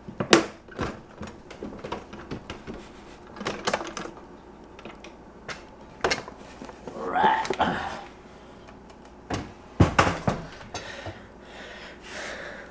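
Wooden kitchen drawer being jiggled and pulled out: scattered knocks and clatters, the sharpest just after the start and about ten seconds in, with a longer scrape around seven seconds. The drawer has come off its slide rails.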